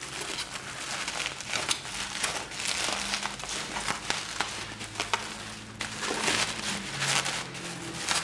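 Bubble wrap crinkling and rustling as hands slide a cardboard box out of a bubble-wrap sleeve, with many small irregular crackles.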